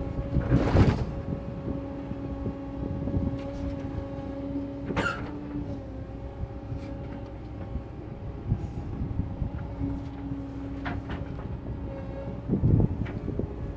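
Excavator running and digging: a steady engine drone with a constant whine, loud scraping crunches about a second in and again near the end, and a sharp metallic clank about five seconds in.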